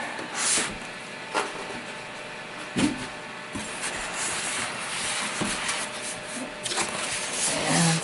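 Handling noise from cardboard and polystyrene foam packing: rubbing and scraping with a few soft knocks in the first three seconds, then steadier rustling as the box flaps are pushed open.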